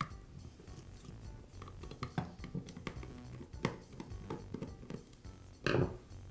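Quiet background music, with a few light clicks of a screwdriver and a steel cover plate being worked on a plastic chain brake housing, and a louder clatter near the end as the screwdriver is set down.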